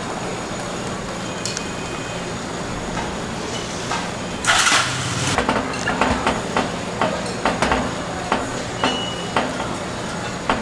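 Metal spoon scraping and tapping against wheel cake griddle molds as shredded radish filling is pressed into the batter: one longer scrape about four and a half seconds in, then a run of sharp clicks, about two a second, over a steady background hum.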